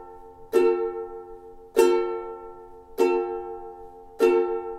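Ukulele strummed on an F chord with single even downstrokes, four strums about 1.2 seconds apart, each chord ringing out and fading before the next.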